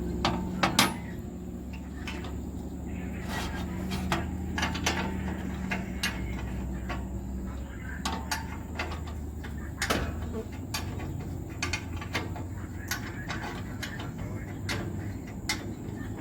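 Hand tools clicking and knocking on metal while a bulldozer's transmission filter is being changed: many short sharp knocks scattered throughout, over a steady low hum.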